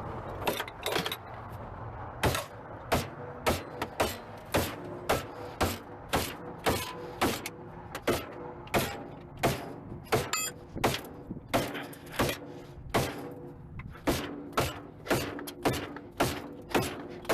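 Repeated sharp knocks on metal in a steady rhythm, about two a second, like hammer blows, with a faint ringing tone between strikes.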